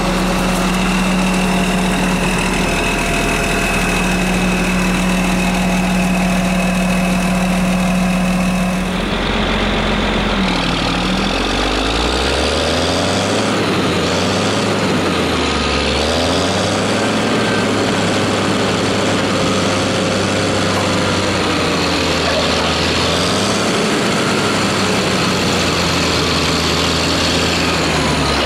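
Heavy diesel engine of a John Deere motor grader running at a steady pitch close by. About nine seconds in the sound changes, and the diesel engines of the grader and a Cat excavator rise and fall in pitch over and over as they work under load, pulling the stuck grader out of a soft ditch.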